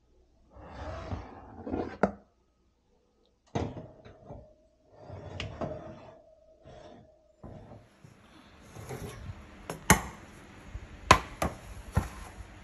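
Round aluminium cake tins being picked up and set on an oven's wire rack: irregular scrapes, knocks and clatters of metal, then several sharp clinks near the end over a steady hiss.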